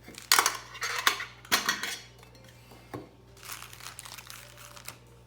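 Small metal tins clinking and clattering as they are handled, with several sharp knocks in the first two seconds, then softer handling noise.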